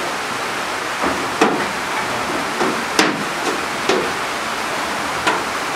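Goats moving in slatted wooden pens, with about seven irregular sharp knocks on wood over a steady hiss.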